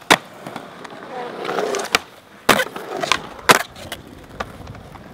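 Skateboards on a concrete skatepark: wheels rolling, with a sharp clack of a board just after the start, then three loud clacks in quick succession about two and a half to three and a half seconds in, and a few lighter knocks after.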